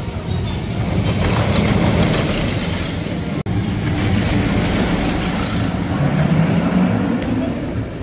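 Intamin steel roller coaster train (Velocicoaster) running along its track on a test run: a steady rushing rumble of wheels on rail that swells louder. It cuts out abruptly for a moment about three and a half seconds in, then builds again.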